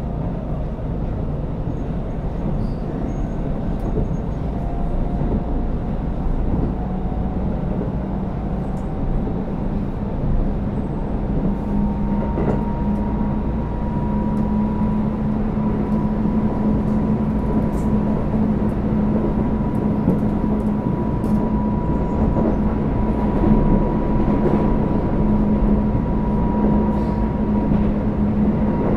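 Running sound inside a Shinkeisei Series 8900 motor car with Mitsubishi IGBT-VVVF traction control: a steady rumble of wheels on rail. About twelve seconds in, a steady low hum and a higher whine come in and hold, and the sound grows slightly louder.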